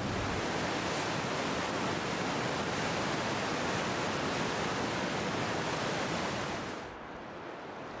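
Whitewater river rapids rushing in a dense, steady wash of water noise. About seven seconds in it drops to a quieter, duller rush.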